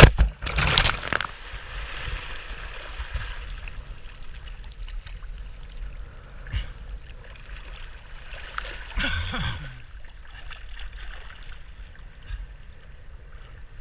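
A rider crashing into the sea with a loud splash at the start, then water sloshing and trickling close around him as he floats, with a smaller splash about nine seconds in.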